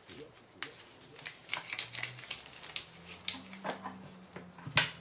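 Irregular light mechanical clicks and taps, about a dozen, from handling and working the parts of a Campagnolo shift/brake lever.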